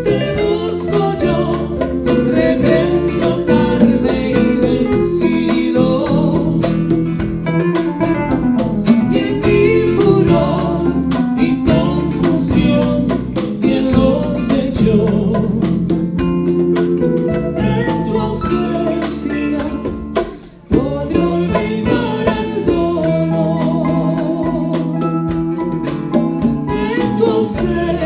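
Live band playing a song: a woman singing over electric and acoustic guitars, keyboard, congas and drum kit. About twenty seconds in the band drops out for a moment, then comes back in together.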